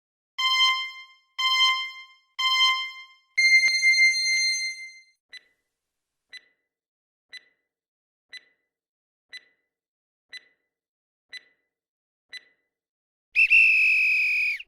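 Quiz countdown timer sound effect: three short electronic beeps a second apart and a longer fourth beep, then eight soft ticks once a second, ending in a loud buzzer-like tone that sinks slightly in pitch.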